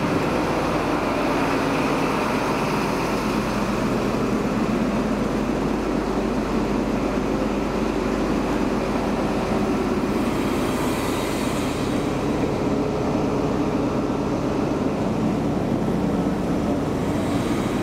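Steady running noise of an HST (InterCity 125) diesel passenger train, with a brief hiss about ten seconds in.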